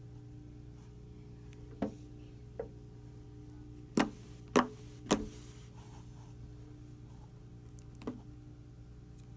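Orange slime squeezed and pinched by hand, giving short sharp pops and clicks: a couple of faint ones, then three loud ones about half a second apart near the middle. A steady low hum sits underneath.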